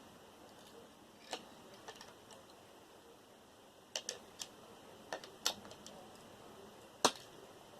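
Scattered light clicks and taps of small metal hard-drive parts being handled and pulled apart, about half a dozen in all, the loudest near the end.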